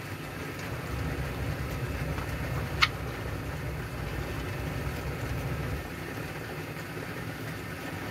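A steady low machine rumble with one short sharp click about three seconds in.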